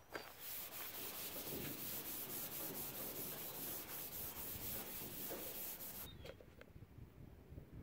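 Red abrasive scuff pad rubbed by hand over the painted sheet-metal side of a pickup bed in quick back-and-forth strokes, scuffing the old paint and body filler as preparation for epoxy primer. The rubbing stops about six seconds in.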